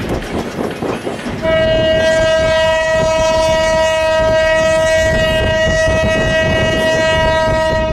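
Train horn sounding one long, steady blast that starts about a second and a half in, lasts about six seconds and cuts off sharply, over the low rumble of the moving train.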